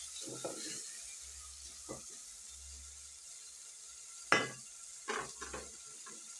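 Diced onion, tomato, carrot and green pepper frying in oil in a metal sufuria, with a steady sizzle, stirred with a wooden spoon that scrapes the pot. A few sharp knocks of the spoon on the pot come a little past halfway, the first the loudest.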